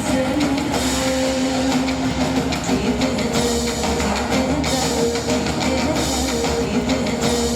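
Instrumental rock-style music with guitar and drums, playing steadily.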